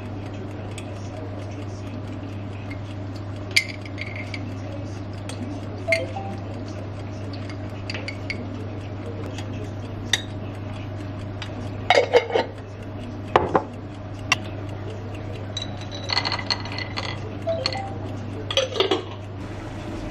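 Cutlery clinking and tapping against ceramic dishes while olives are served into a small bowl: scattered clicks and clinks, a few of them ringing, busier in the second half. A steady low hum runs underneath.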